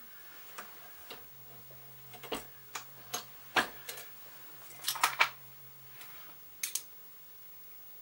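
A dozen or so irregular sharp clicks and knocks of a MEC reloading press being worked by its handle to seat a bullet in a 5.56 cartridge, with the round handled at the press, the loudest knocks around the middle.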